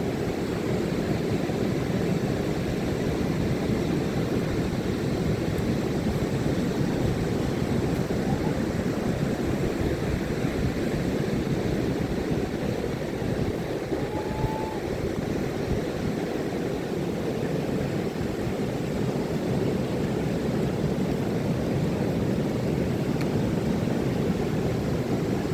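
Ocean surf breaking on a beach: a steady, low rushing wash of waves with no letup.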